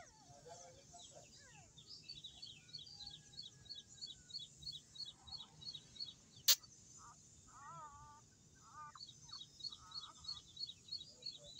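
A bird chirping a short high note over and over, about four times a second, with a few other wavering calls in between. One sharp click a little past the middle is the loudest sound.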